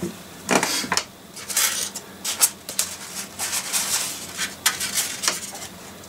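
Paper and plastic packaging crinkling and rustling in the hands in short irregular crackles as a parcel is unwrapped.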